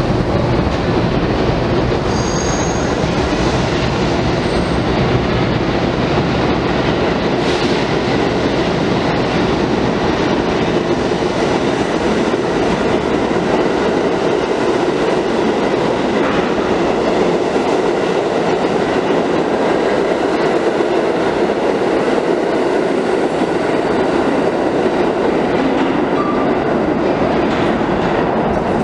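R68A subway train pulling out of an underground station and running past close by: a loud, steady rolling rumble of wheels on rail, with a few brief high wheel squeals a few seconds in.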